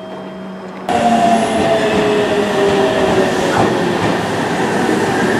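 Aichi Loop Railway 2000 series two-car electric train pulling into the platform. Loud rolling wheel and rail noise comes in suddenly about a second in, with whining tones that fall in pitch as the train slows to a stop.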